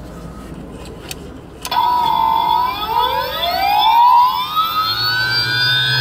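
Jet engine spooling up: nearly two seconds in, a whine starts suddenly, and several tones rise in pitch over a few seconds and then level off. A low steady hum joins near the end.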